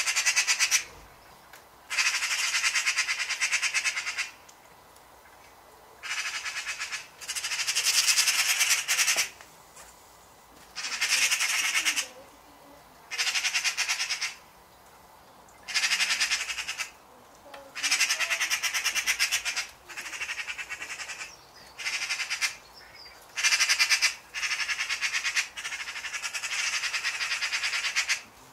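Eurasian magpies giving their rapid rattling chatter, the alarm call they use when mobbing a predator such as a cat. It comes in about a dozen bursts of one to two seconds with short pauses between.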